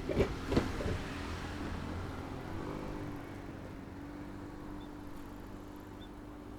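A train passing through a level crossing. Its wheels knock heavily over the rail joints twice at the start. Then the rumble fades, leaving a steady low hum as the train moves away.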